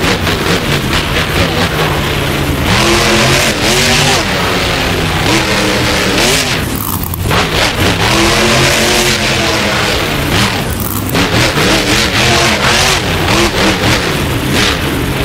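Monster truck engine revving hard up and down, over and over. It eases briefly twice, about seven and eleven seconds in.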